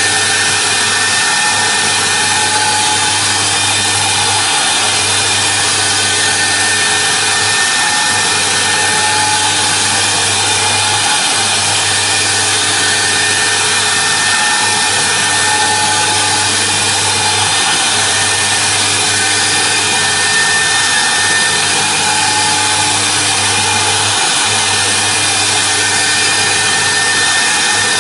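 CNC router spindle running steadily as its thin bit carves a foam block turning on the rotary axis: a constant high whine over a low hum and cutting hiss.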